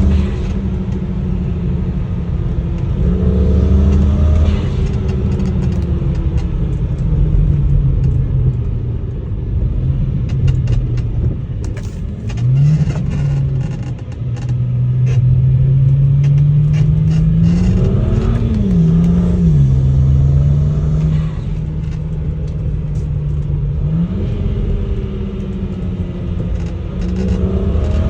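BMW N54 twin-turbo inline-six engine heard from inside the cabin while driving, its pitch climbing under acceleration and dropping at gear changes several times. A run of short clicks and creaks partway through comes from the worn coilover suspension.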